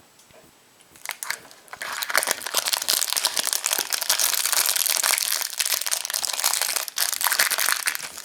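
Foil wrapper of a chocolate surprise egg being crinkled and torn open by hand. After a second or so of quiet and a few clicks, it becomes a dense, continuous crinkling about two seconds in.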